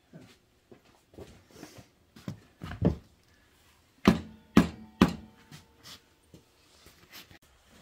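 Hammer blows at a motorcycle's rear wheel as it is fitted: a few lighter knocks, then three sharp strikes about half a second apart, four to five seconds in, each with a brief metallic ring.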